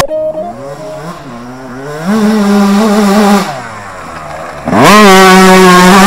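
Yamaha YZ125 two-stroke motocross bike engine being revved hard on a dirt track. The revs climb over the first two seconds and hold high, drop off briefly past the middle, then rise sharply and hold high near the end.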